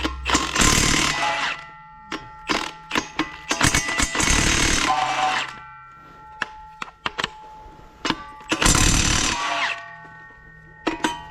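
Impact wrench running in three bursts of about a second each, loosening bolts during an engine teardown, with sharp metal clicks and clanks of sockets and parts between the bursts.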